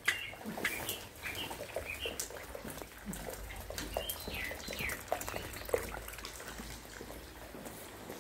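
Birds chirping in short calls, some sliding down in pitch, with a few faint clicks and knocks.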